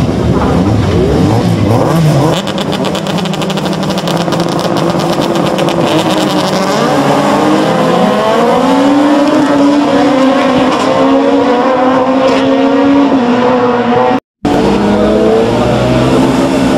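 Several rallycross cars' engines revving hard on the start grid, then launching together and accelerating away, with a fast crackle for a few seconds and engine notes climbing in pitch through the gears. After a sudden cut near the end, another grid of rallycross cars is heard revving.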